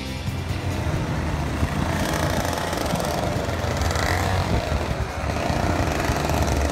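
IAME X30 125cc two-stroke kart engine running at idle, a steady low rumble with the kart standing still.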